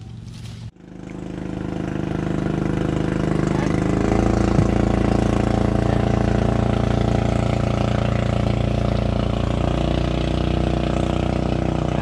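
A small engine running steadily. It comes in after a sudden break less than a second in, grows louder over the next few seconds, then holds an even pitch and level.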